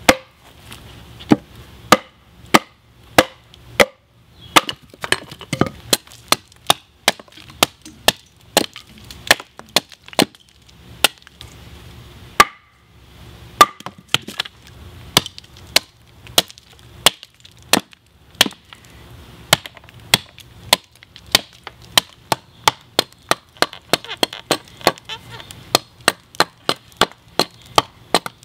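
Hand axe chopping into a debarked birch log, hewing it roughly square: sharp blows about twice a second, with a brief pause a little under halfway through and quicker strokes towards the end.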